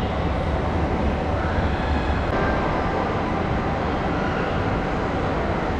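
Steady low rumble with an even background din, the ambient noise of a large indoor mall space.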